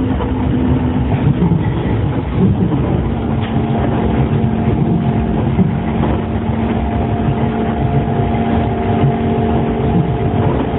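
Astram Line 6000-series rubber-tyred train running, heard from inside the car: a steady ride rumble under low, steady whines from its shunt-wound chopper-controlled traction motors, one of the tones shifting down slightly two to three seconds in. The motor sound is one the uploader calls abnormal.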